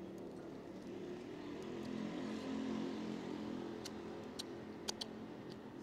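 Engine hum of a passing vehicle, a steady drone with several pitches that swells toward the middle and fades away. Near the end come a few sharp, wet clicks from lips smacking as sauce is licked off fingers.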